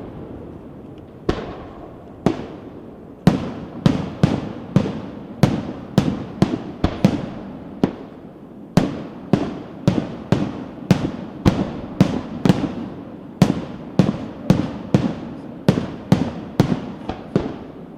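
Aerial fireworks shells bursting in a steady run of sharp bangs, one to three a second, each with an echoing tail, with a brief gap about halfway through.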